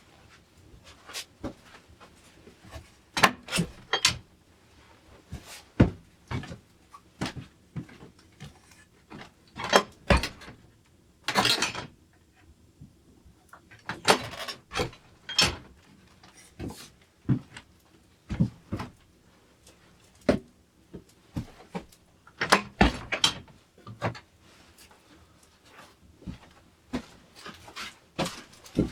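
Irregular wooden knocks, clunks and clicks at a cabin door, some coming in quick clusters, typical of a plank door being worked and opened and shut.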